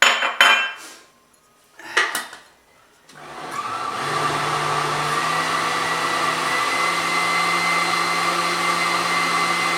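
A few sharp knocks, then an electric blender starts about three seconds in and runs steadily, puréeing duck liver with eggs; its motor hum steps up in pitch slightly twice.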